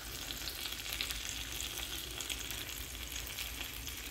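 Tomato and onion slices frying in oil in a pan, a steady crackling sizzle.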